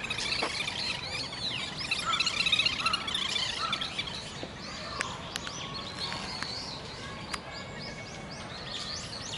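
Birds chirping: many short, high calls in quick succession for the first few seconds, then fewer scattered chirps and a few sharp ticks over steady outdoor background noise.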